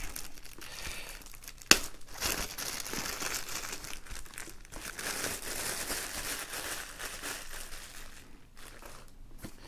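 Clear plastic shrink-wrap being torn and pulled off a cardboard box, crinkling and crackling, with one sharp crack a little under two seconds in. The crinkling thins out near the end.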